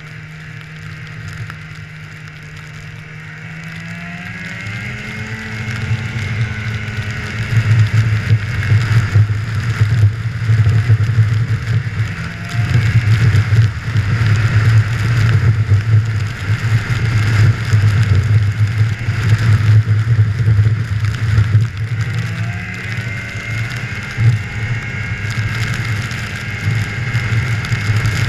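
Snowmobile engine pulling away under throttle: the note climbs about four to five seconds in, then the sled runs loud and rough at speed, and the pitch climbs again after about 23 seconds.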